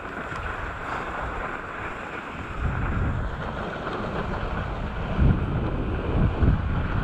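Wind buffeting a skier's camera microphone at speed, with the hiss of skis sliding over groomed snow. The low rumble grows stronger about two and a half seconds in, with louder gusts near the end.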